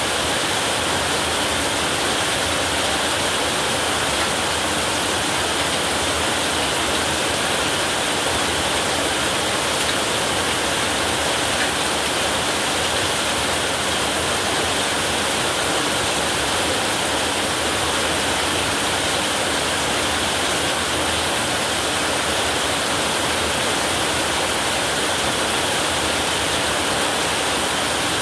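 Heavy rain falling on a roof: a dense, steady hiss with no thunder in it.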